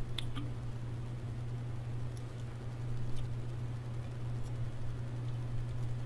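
A few faint, light clicks as fingers handle an electric drive motor's shaft bearing and its plastic cap, over a steady low hum.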